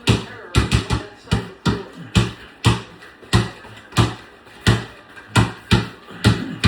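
A basketball being dribbled, bouncing on a hard floor about three times a second, each bounce a sharp thud with a short hollow ring.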